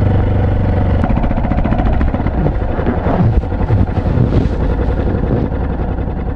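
Yamaha Serow's single-cylinder engine running steadily, then its revs rising and falling several times from about two seconds in. The engine sound grows a little quieter near the end.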